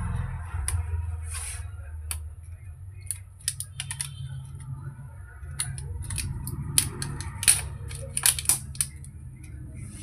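Small sharp clicks and taps of plastic and metal as a laptop's hard disk in its metal bracket is worked loose from the opened chassis, with a dense run of clicks in the second half.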